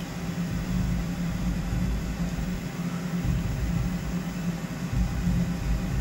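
Steady low hum of the milling machine standing by, with a deeper rumble that comes and goes as the table is moved to sweep the part under a dial test indicator.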